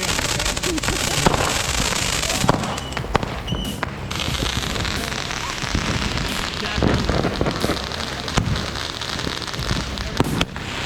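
Fireworks going off: a dense crackling for the first couple of seconds, then scattered sharp pops and bangs.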